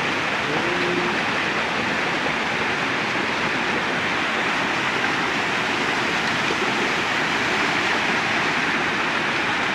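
Steady rushing of flowing water, an even unbroken noise.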